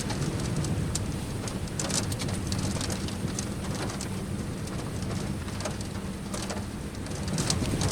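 Storm rain striking a vehicle, heard from inside as scattered sharp ticks over a steady low rumble.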